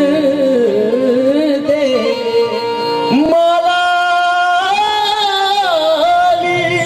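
Qawwali singing with harmonium accompaniment: male voices draw out long notes that slide and waver, stepping up to a higher held note about three seconds in.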